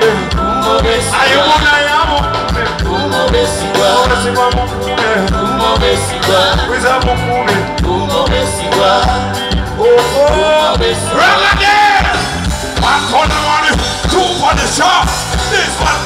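Live band playing loudly through a stage PA, with a steady beat and a singer's voice over it.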